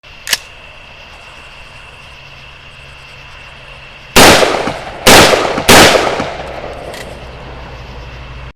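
Three shots from an AR-15 rifle firing 5.56 mm rounds, the first about four seconds in, the next two less than a second apart, each trailing off with a long echo. A sharp click comes just before, near the start, and a faint crack about seven seconds in.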